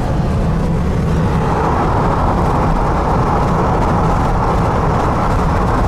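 Car in motion heard from inside, with wind rushing in through a partly open side window over the road rumble; the wind hiss gets louder about a second and a half in.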